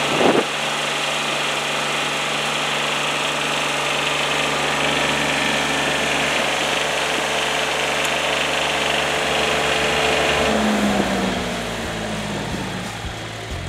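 Small three-cylinder diesel engine of a Scammer 300 ground power unit running steadily, with a brief knock near the start. About ten seconds in it is switched off and its note falls away as it runs down.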